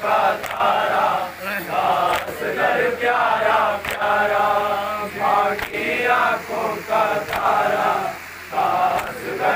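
Men chanting a noha, a Shia mourning lament sung in Urdu, with a lead reciter and the gathering joining in. Sharp slaps land about every second and a half to two seconds in time with the chant, the beat of matam chest-beating.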